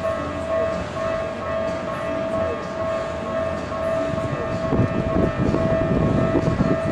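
Japanese railway level-crossing warning bell ringing in a steady repeating electronic clang. About two-thirds of the way in, the rising rumble of a Keikyu 1000 series electric train reaching the crossing joins it.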